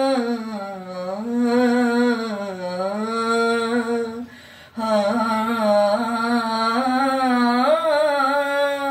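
A teenage boy singing solo, unaccompanied: long, drawn-out, ornamented phrases from a Kannada devotional lullaby, gliding up and down in pitch, with a short pause for breath about halfway through.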